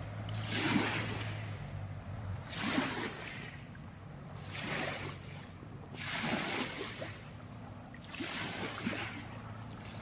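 Small waves washing onto a pebble shore, a soft swell of hiss about every two seconds. A low steady hum from a distant motorboat lies under the first couple of seconds and then fades out.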